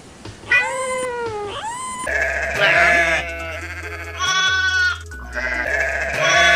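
A kitten meows once, a call that rises and then falls. From about two seconds in, bleating calls sound over background music with a steady low beat.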